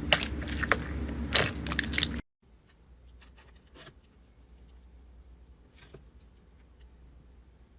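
Slime being pressed and squeezed by hand, crackling with many small clicks and pops. About two seconds in it cuts off abruptly to a much quieter clip with only faint, scattered clicks of handling.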